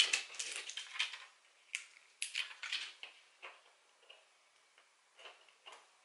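Faint, scattered small clicks, taps and light rustles of hands fixing small craft pearls onto a wooden clothespin on a tabletop.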